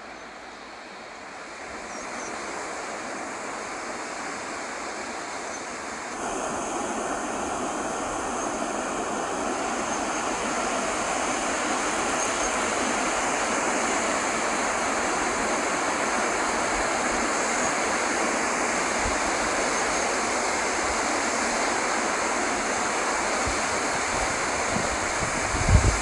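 Waterfall cascading down a rocky gorge: a steady rush of falling water that grows louder in two steps, about two and six seconds in, then holds even. A few gusts of wind hit the microphone near the end.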